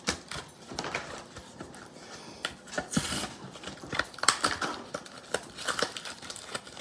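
Foil Yu-Gi-Oh booster pack wrappers crinkling and tearing as the packs are handled and opened by hand, in quick irregular crackles, with a denser stretch of rustling about three seconds in.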